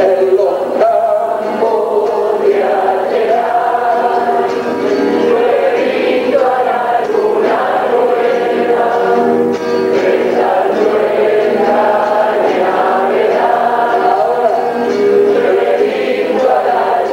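Argentine folk song performed live: men singing to the accompaniment of three acoustic guitars.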